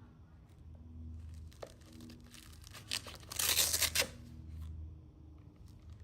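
A sanding disc being peeled off the hook-and-loop (Velcro) pad of a random orbital sander: one loud rasping rip lasting about a second, around the middle, with a small click just before it and quiet handling of the paper around it.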